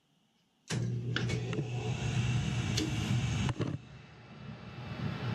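Gas-fired boiler's burners running with a steady low roar, which starts abruptly under a second in. A few sharp clicks come early on.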